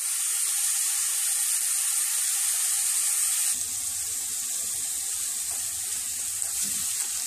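Grated onion frying in melted butter in a stainless steel pan: a steady sizzle, stirred with a silicone spatula. The sizzle eases a little about halfway through.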